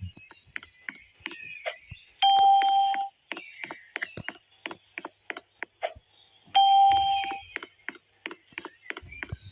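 An electronic beep tone, held for just under a second, sounds twice, about two seconds in and again about four seconds later. Quick sharp clicks tick steadily between the beeps, about three or four a second.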